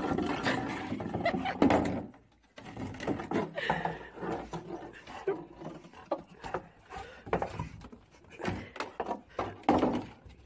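A dog handling a plastic snow shovel on a snowy wooden deck, with irregular scrapes and hollow knocks of plastic against the boards.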